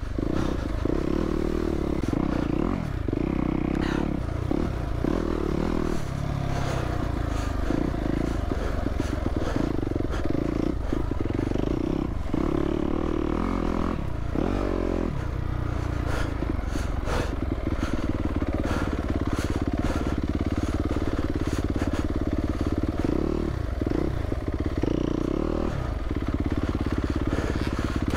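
Yamaha YZ250F dirt bike's single-cylinder four-stroke engine running on the trail, its revs rising and falling again and again as the throttle is worked on and off.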